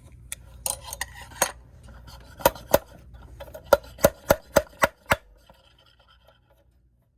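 Sharp metallic clicks and clinks from a clock-bushing tool as its anvil is fitted and a brass bushing is set into the movement plate, building to a run of about six ringing taps at roughly three a second, then a few faint ticks.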